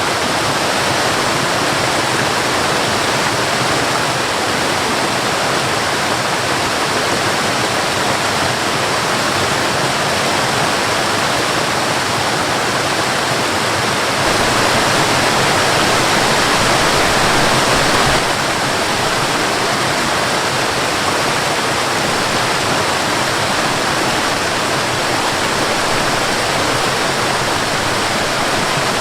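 Waterfall: a steady rush of falling water. It gets slightly louder and deeper for a few seconds past the middle, then drops back suddenly.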